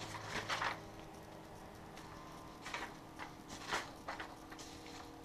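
Paper pages of a spiral-bound manual being handled and turned: a few faint rustles, about half a second in and again around three to four seconds in, over a steady low hum.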